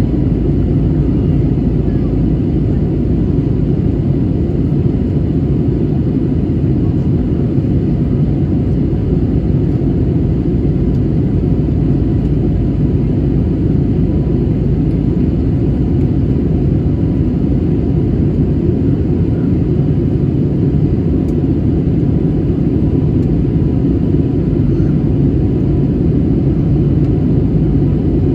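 Steady jet engine and airflow rumble inside the cabin of an Airbus A320-family airliner during the climb after takeoff, a deep even drone with no changes.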